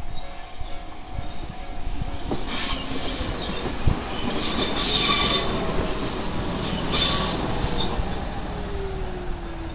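Jōmō Electric Railway train passing over a level crossing, its wheels squealing in three high-pitched bursts over a steady rail rumble. A lower tone slides down in pitch over the last few seconds.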